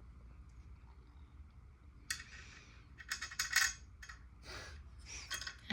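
Small metal fan hardware clinking and scraping as the blades and their screws are fitted to a vintage SMC ceiling fan: a sharp clink about two seconds in, a quick cluster of clinks a second later, then a few softer ones.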